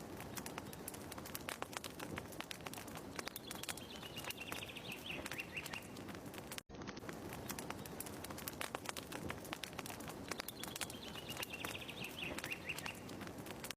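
Wood fire crackling with dense sharp pops, and a bird's chirping trill falling in pitch, heard twice about seven seconds apart, as the same short ambience recording repeats.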